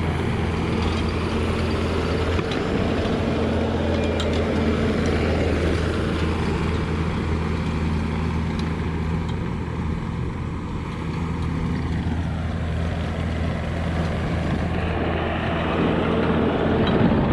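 Diesel engine of a tracked construction machine running steadily under load as it drives back and forth over fresh gravel to pack it down, with a few light clicks from the tracks.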